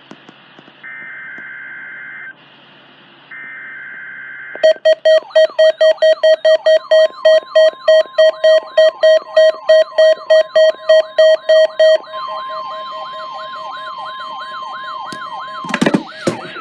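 NOAA Weather Radio test alert. First come two bursts of the SAME digital header's data tones. Then a weather-alert receiver's alarm sounds loud rapid beeping, about three a second, over a warbling siren sweep, while the steady 1050 Hz Warning Alarm Tone of a weekly warning-alarm test comes on. The beeping stops about twelve seconds in, the warble and tone carry on, and a short clatter of clicks comes near the end.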